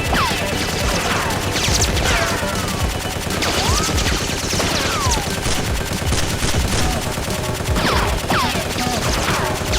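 Gunfire sound effects: continuous rapid machine-gun fire mixed with single shots, with several falling whistles like passing bullets.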